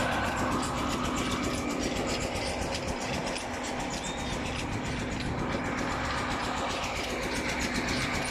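Steady running noise of a moving vehicle, with a low steady hum.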